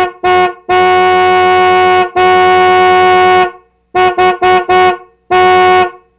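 Car horn honking in a pattern: two short beeps, two long blasts, four quick beeps, then one more short blast.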